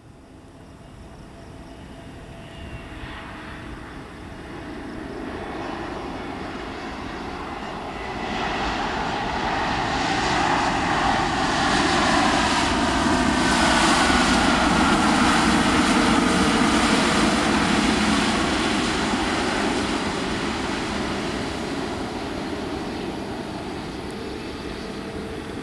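Airbus A320-family jet airliner's engines during its landing roll on the runway. The noise swells to a peak about halfway through, with shifting whining tones over a broad rush, then slowly fades as the aircraft slows and moves away.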